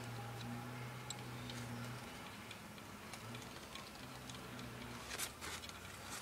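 Faint ticking and small clicks over a low steady hum, with a brief rustling scrape about five seconds in.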